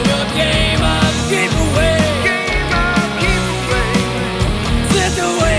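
Rock band playing live in a grunge style, with electric guitar lines bending in pitch over bass and a steady drum beat.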